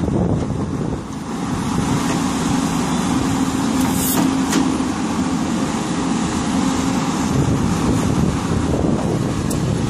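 Hidromek HMK300LC-3 crawler excavator's diesel engine running steadily at working revs, with a brief sharp knock about four seconds in.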